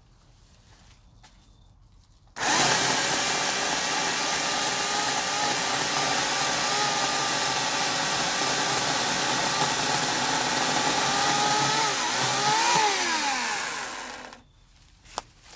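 Portland 14-inch corded electric chainsaw's 9-amp motor starts suddenly a couple of seconds in and runs at a steady speed for about eleven seconds, cutting into brush and vines, then winds down near the end.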